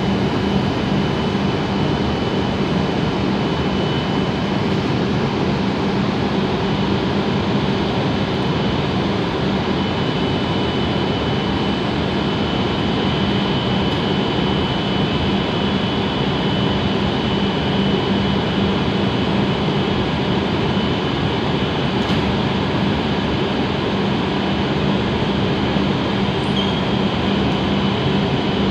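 Steady hum of a stopped W7 series Shinkansen train's onboard equipment running while it stands at the platform. It is a constant low drone with a thin, high steady whine over it.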